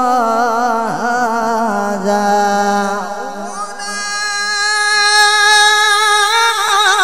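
A male qari chanting Quran recitation (tilawat) in the melodic tajweed style, one voice with a wavering, ornamented line that settles into a long steady held note about four seconds in, then breaks back into ornament near the end.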